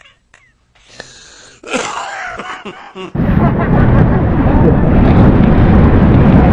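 Wind buffeting an action camera's microphone, with rushing water, on an inflatable banana boat towed at speed; it cuts in suddenly and loud about three seconds in. Before it comes a short stretch of hiss and muddled sound.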